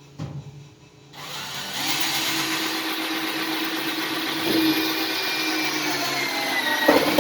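Electric grinder starting up about a second in and then running steadily, a loud hiss with a steady hum, likely grinding off stuck fasteners. A short knock comes just before it starts and a clunk near the end.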